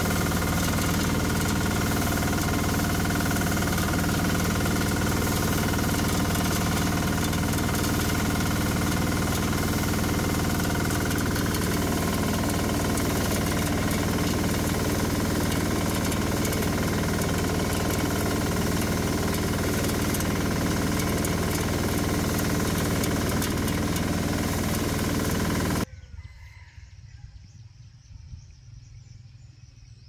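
Small tracked rice combine harvester running steadily while cutting rice: a constant engine drone with the whir of the machinery, heard from the driver's seat. It cuts off suddenly near the end, leaving faint outdoor ambience.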